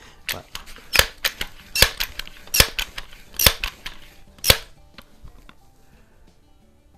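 Crosman 1322 multi-pump pneumatic air gun being pumped: five sharp mechanical clacks of the pump lever, under a second apart, with lighter clicks between them as the lever opens. Faint music comes in near the end.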